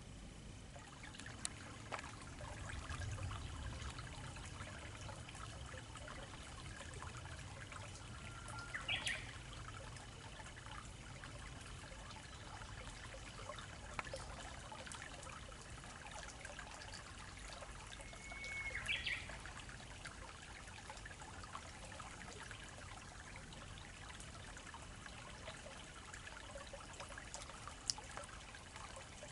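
Gentle trickle of a small, slow-flowing river, with a bird giving a short rising call twice.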